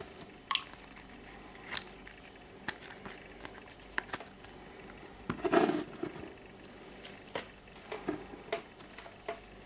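Scattered small clicks and taps, with a louder burst of knocking and rustling about five and a half seconds in, like hands handling phones; no ringtone or alarm tone is sounding.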